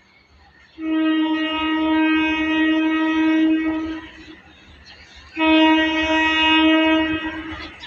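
Train horn sounding two long, steady blasts of one pitch, the first about three seconds long and the second a little shorter after a short gap.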